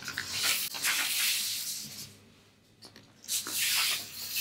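Large sheets of drawing paper rustling and sliding against each other as they are turned over in a portfolio: one long swish of about two seconds, then a shorter one about three seconds in.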